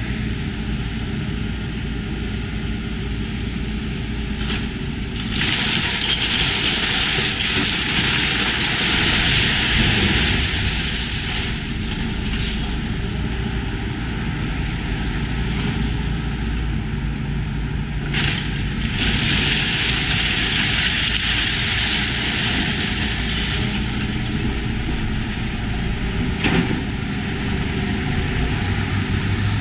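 Tracked demolition excavator's diesel engine running steadily as its grab tears at a brick building, with two long louder stretches of crunching, crashing debris and a few sharp knocks.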